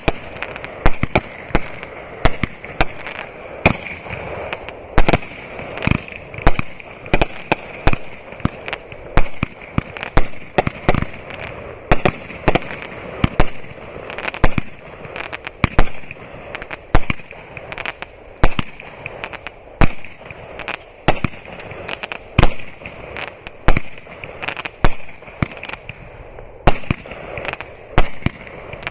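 Fireworks firing a long rapid string of sharp reports, about two or three bangs a second, over a steady high hiss.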